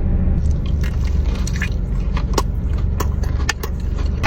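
Close-up biting and chewing of fried food, a string of sharp crunchy clicks, over a steady low hum.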